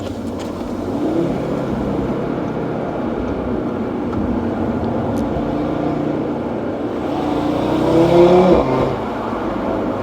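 2018 Audi RS3's turbocharged 2.5-litre five-cylinder engine pulling under hard acceleration over road noise, its note climbing steadily in pitch and loudest about eight seconds in, then dropping away suddenly.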